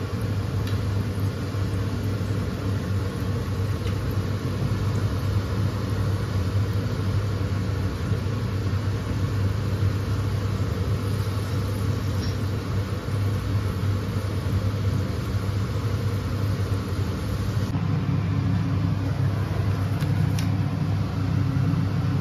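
Gujiya deep-frying in hot oil in a steel kadhai: a steady sizzle over a steady low rumble, with a few light clicks of a slotted spoon against the pan.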